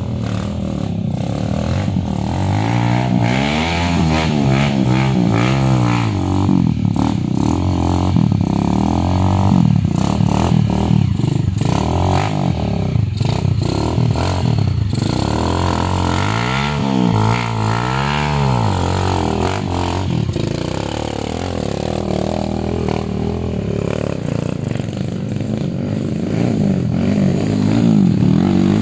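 Small air-cooled single-cylinder dirt bike engines revving up and down repeatedly as the bikes pick their way over a rocky dirt trail.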